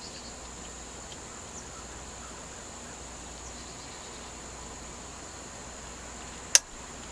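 Steady high-pitched chirring of insects, with one sharp click near the end, the plastic latch of a handlebar phone mount snapping shut.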